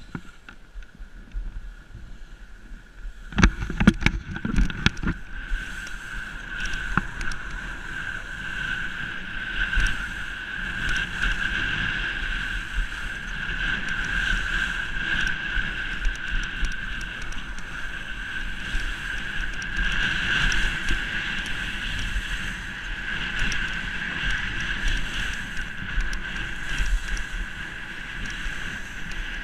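Skis scraping and hissing over packed, rutted snow on a downhill run, with wind buffeting the camera microphone and a steady whistling tone running through it. A few sharp knocks sound about three to five seconds in.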